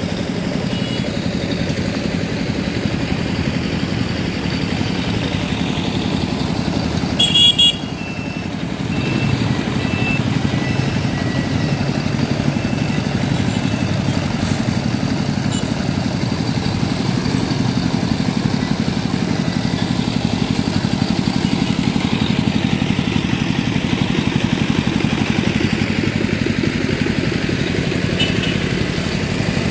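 Steady hum of motorcycle and motorcycle-tricycle engines in street traffic, with a short loud burst of noise about seven seconds in.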